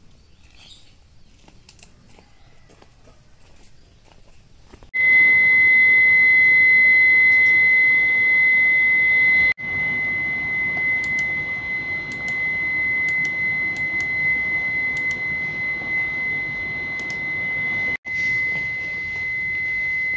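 A steady, high-pitched electronic tone over a hiss, starting suddenly about five seconds in after a quiet stretch of faint ticks.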